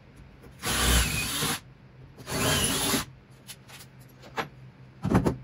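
Cordless drill boring through the steel floor pan of a 1968 Mustang, two bursts of about a second each with a short pause between, stepping pilot holes up toward their final 3/8-inch size. A few clicks and a short clatter follow near the end.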